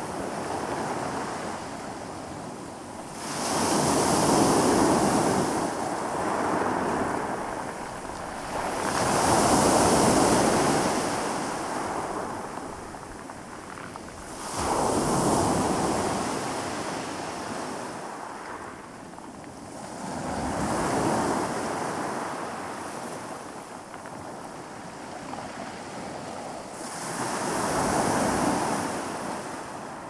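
Calm sea waves breaking and washing up a pebble beach, one surge swelling and fading about every five or six seconds.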